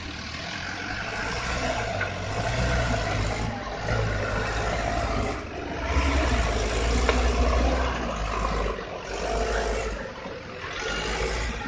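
Engine of a light truck loaded with oil-palm fruit labouring through deep mud, its revs swelling and easing several times as it pushes along.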